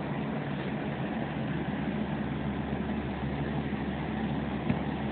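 Steady rain falling, with a steady low hum underneath and one short click near the end.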